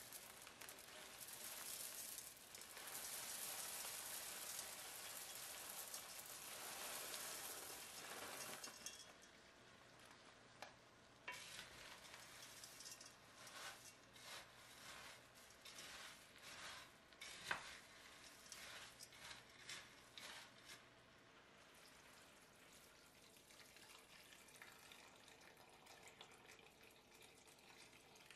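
Frozen corn kernels pouring into a hot enamelled pot of onions with a steady sizzling hiss, then a wooden spoon stirring the kernels with irregular scraping clicks from about a third of the way in.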